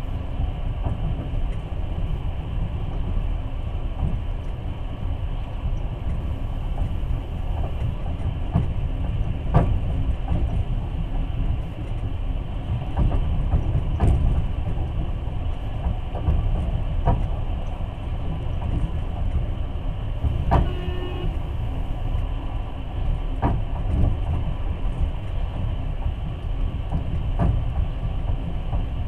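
Passenger train carriage running along the track, heard from inside: a steady low rumble with occasional knocks from the wheels, and a brief squealing tone about twenty seconds in.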